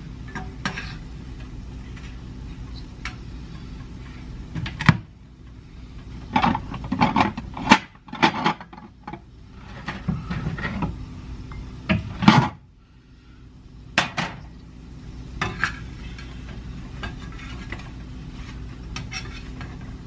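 Metal cooking utensils clattering, knocking and scraping against a pan and dishes on the stove, in irregular bursts over a steady low hum.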